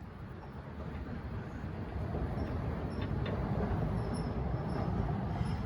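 Low, steady rumble of a vehicle, growing gradually louder.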